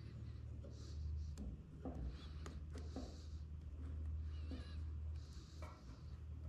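Small clicks and scraping as the parts of an aftermarket fuel pump assembly are handled and a retaining clip is worked into place, over a steady low hum.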